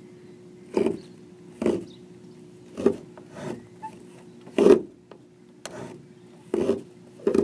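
Camera being handled and repositioned: a string of about eight short scuffs and knocks, irregularly spaced, over a faint steady hum.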